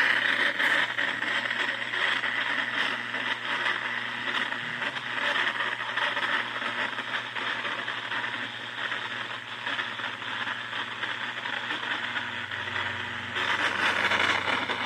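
Portable radio giving out a steady hiss of static with crackling, over a low hum; the hiss turns a little brighter near the end.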